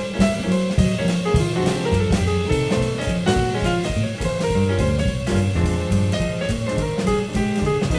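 A jazz quintet playing live: double bass, drum kit with steady cymbal strokes, piano and saxophone.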